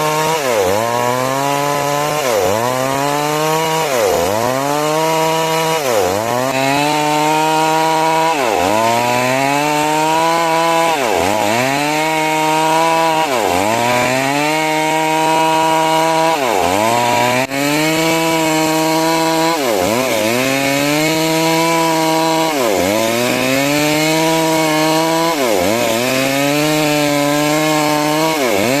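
Chainsaw cutting timber lengthwise into rafters, its engine running at high speed. The pitch dips sharply and recovers about every two seconds as the chain loads in the wood.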